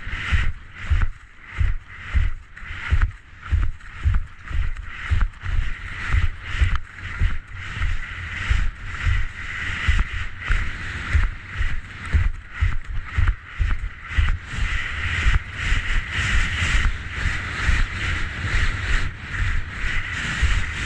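Skis running a mogul line in spring snow: a low thud at each bump about twice a second, over a steady hiss of the skis scraping the snow.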